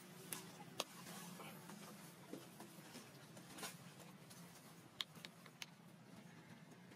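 Near silence with a faint steady low hum and a few short, faint clicks: one about a second in and three in quick succession around five seconds in.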